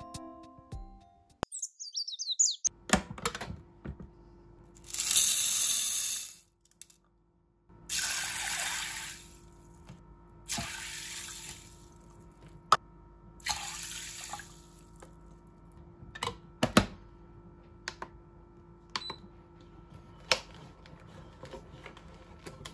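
Water poured from a measuring cup into a rice cooker's inner pot of adzuki beans, in a few separate splashing pours, followed by a few sharp clicks and knocks near the end.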